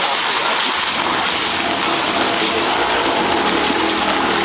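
Monsoon rain falling steadily on a flooded street, a constant loud hiss of rain and water, with splashing from people wading through shin-deep floodwater.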